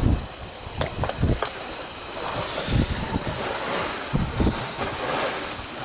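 Wind noise on the microphone, with a few sharp knocks about a second in and dull thumps a little after four seconds in, as a heavy chunk of concrete with a metal bolt, caught on a neodymium magnet, is hauled onto a concrete wall and handled there.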